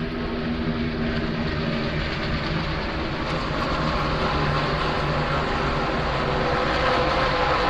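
Stock car engines running at speed, with a steady pitched drone that grows gradually louder.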